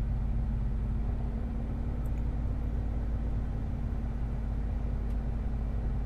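Ford F-150 pickup engine running steadily, heard from inside the cab as a low, even hum, with Cerma engine treatment freshly added to its oil.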